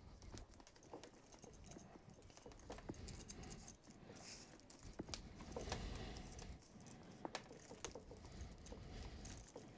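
Faint handling noises from a leather strap and a metal rotary hole punch: scattered light clicks and soft rustling.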